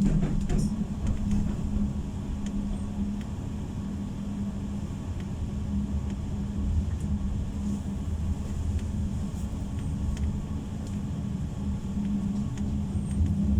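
Inside a Pesa low-floor tram running between stops: a steady low rumble from the wheels on the rails, with a constant hum.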